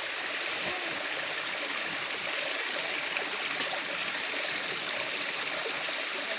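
Steady rushing of flowing stream water, an even, unbroken wash of sound.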